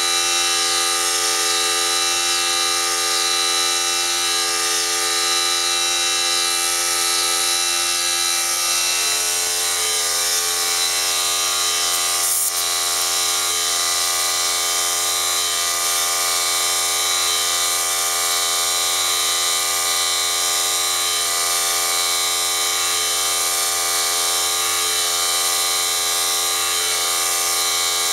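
Air compressor's electric motor running steadily, a constant whine made of several steady tones, as it pumps air through a coiled hose to charge a homemade PVC air cannon. A single sharp click about twelve seconds in.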